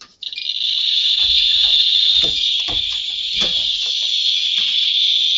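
Geiger counter switched on next to a very hot radioactive test sample, its clicks coming so fast that they merge into a steady, high-pitched crackling rush that begins just after the start. A few soft knocks from handling the sample and instrument sound underneath.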